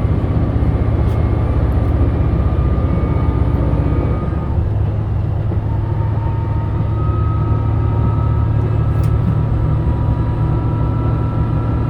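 Inside a JR Shikoku 2000 series diesel railcar running at speed: a steady rumble of the diesel engine and wheels on the rails, with a faint whining note that drops and changes pitch about four and a half seconds in.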